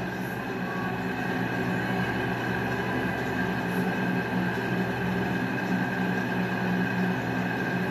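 Steady droning hum made of several held tones, with no speech over it.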